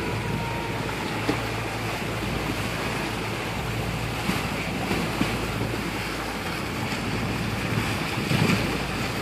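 Wind buffeting the microphone over choppy open water, with waves slapping around the boat and a steady low hum underneath.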